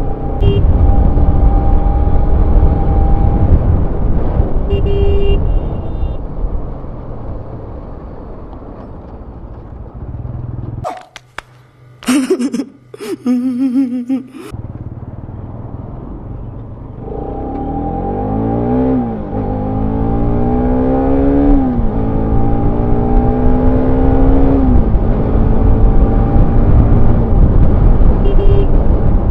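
Bajaj Pulsar RS200's single-cylinder engine running under way, with heavy wind rush. About eleven seconds in, the ride sound cuts away for a few seconds to a cut-in film clip with a man's voice. From about seventeen seconds the engine's pitch climbs and drops three times as the bike accelerates up through the gears.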